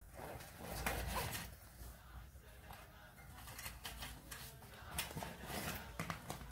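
Zipper of a soft fabric carrying bag being opened, with cloth rustling and a few light clicks and knocks as the folding metal camping stove inside is handled.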